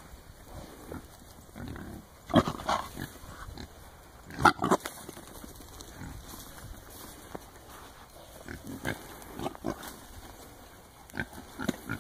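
Herd of wild hogs grunting and squealing, with two loud outbursts about two and a half and four and a half seconds in and a run of shorter calls near the end.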